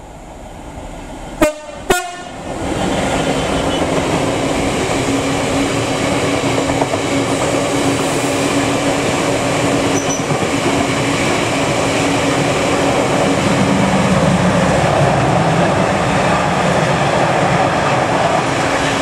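Class 66 diesel locomotive sounding two short horn blasts as it passes, then its train of bogie hopper wagons rolling by with a steady, loud rumble of wheels on rail.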